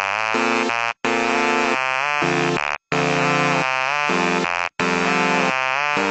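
Background electronic music: a buzzy synthesizer playing a stepping sequence of notes, with brief breaks about every two seconds.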